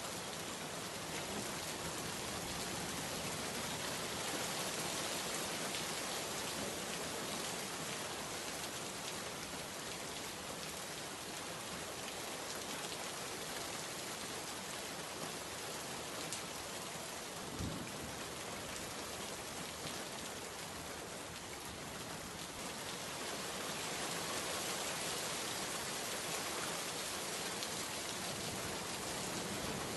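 Steady rain on a window pane, swelling and easing a little, with one short low knock about halfway through.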